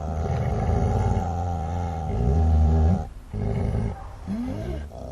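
Dogs growling and snarling: a long, deep, rough growl for about three seconds, then after a short break more snarls that rise and fall in pitch.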